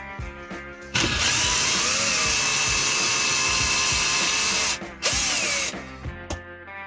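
Electric power drill running in two bursts, a long one of about three and a half seconds and then a short one, its pitch wavering with the motor speed. Background music plays on either side of it.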